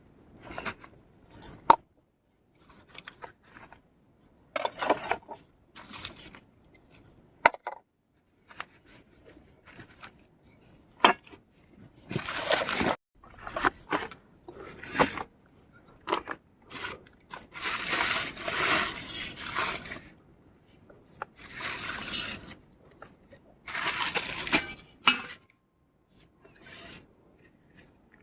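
Irregular handling sounds of outdoor cooking work: scrapes and rustles of a second or two each, broken by a few sharp clicks and short quiet gaps.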